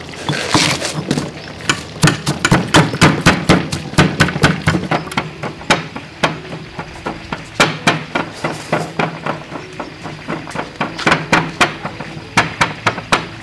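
Pestle pounding salt and pepper in a mortar: runs of sharp knocks, a few a second, thinning out in the middle and picking up again near the end.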